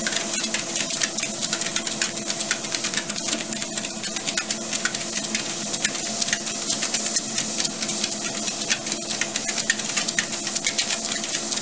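ProForm treadmill running with a steady motor whine, under fast, uneven clicking and pattering of two corgis' paws on the moving belt.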